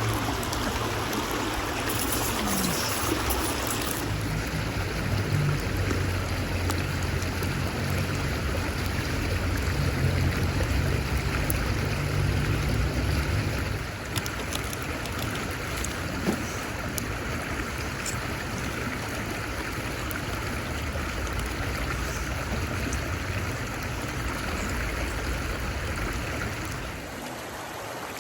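Steady rushing noise like a flowing stream, with a low rumble underneath that drops away near the end and a few faint ticks.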